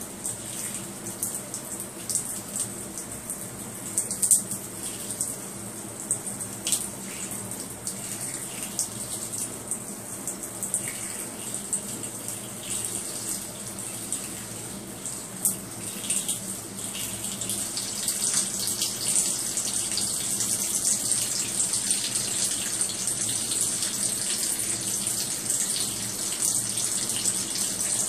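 Thin stream of running tap water splashing onto a wet tiled floor and a turtle's shell, with scattered small splashes. The running water gets louder and steadier a little past halfway.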